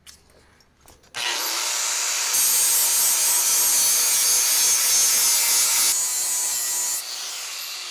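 An electric angle grinder starts up about a second in and grinds metal off a cast-iron bench vise, taking off a chipped, welded-on jaw piece. The grinding gets louder about two seconds in and eases near the end.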